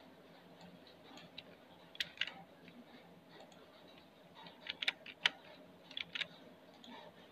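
Computer mouse and keyboard clicks: a couple of sharp clicks about two seconds in, a quick cluster of them around five seconds and two more around six seconds.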